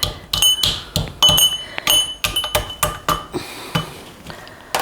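Pestle pounding in a mortar, crushing boiled, softened walnuts in their shells: about a dozen sharp ringing strikes, two to three a second, then pausing after about three seconds before one last strike near the end.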